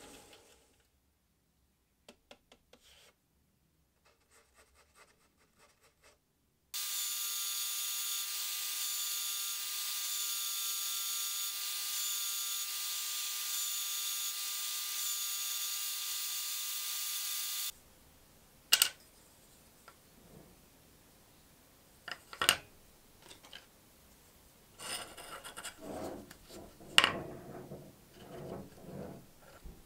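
A sanding drum spinning in a drill press with a wooden razor handle scale held against it: a steady motor hum under the hiss of sanding, starting abruptly about seven seconds in and stopping about eleven seconds later. Before it, near silence with a few faint ticks; after it, scattered sharp clicks and taps of small handle parts and a pin handled on a wooden workbench.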